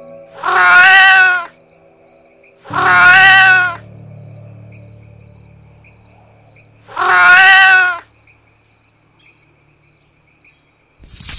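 A cat meowing three times, each meow long and high-pitched with a slight rise and fall, spaced a few seconds apart. A noisy rattling cuts in just before the end.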